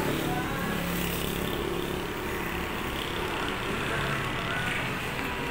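Steady hum of street traffic, a constant rush of passing cars and motorbikes with no sharp events.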